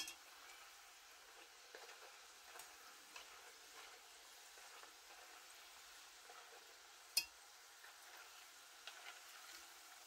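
Plantain slices deep-frying in hot oil: a faint, steady sizzle with small crackles. A sharp click comes at the start and a louder one about seven seconds in, as the metal turning fork knocks against the enamelled pot.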